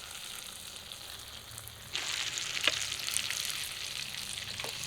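Chicken pieces going into hot spice paste and oil in a kadai: a faint sizzle that turns into a louder sizzle about two seconds in, with a few sharp clicks as the pieces land.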